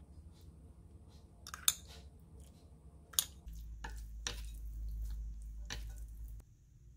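Wooden chopsticks mixing sauce-coated noodles in a ceramic bowl: soft wet squishing, with four or five sharp clicks of the chopsticks against the bowl, and a low rumble for a few seconds in the middle.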